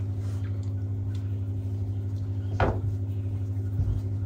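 Steady low hum with several overtones, like a running machine or appliance. One short knock comes about two and a half seconds in, with faint rustling.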